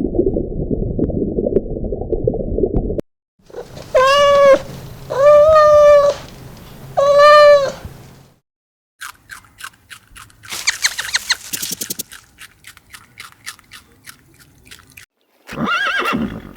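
A cat meowing three times, each meow about a second long and steady in pitch. Before it come about three seconds of low, dense rumbling noise; after it come a run of sharp clicks, a short burst of hissing noise, and one more short call near the end.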